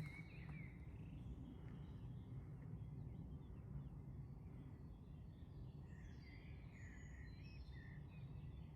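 Faint outdoor ambience of small birds chirping: a brief chirp at the start and a busier patch of high twittering about six seconds in, over a steady low rumble.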